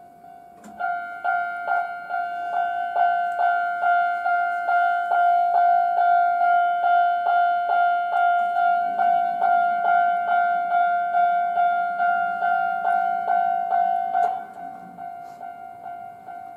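Japanese level-crossing warning bell ringing: an electronic ding-ding at about two strikes a second. It gets much louder about a second in and drops back to a fainter ringing at about fourteen seconds.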